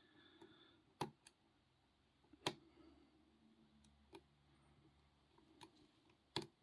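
Faint, scattered clicks of a short hook pick and tension wrench working the pin stack of a 45 mm padlock, about five in all, with the pick probing while the tension is adjusted.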